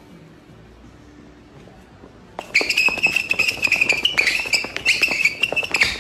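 Dog whining in one long, high-pitched note that starts about two and a half seconds in, with many sharp clicks and taps over it.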